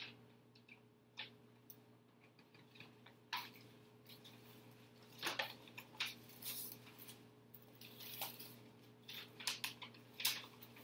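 Paper envelopes and letters being handled, opened and pulled out, rustling and crinkling in irregular bursts, over a faint steady hum.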